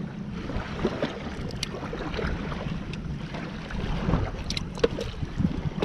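Wind buffeting the microphone, a steady low rumble, with a few short faint clicks of handling in between.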